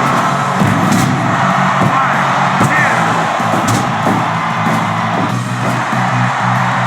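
Music playing, with two brief sharp hits over it, about a second in and just before the middle.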